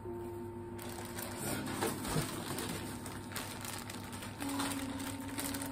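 Clear plastic packaging rustling and crinkling as a bodysuit is handled and unwrapped.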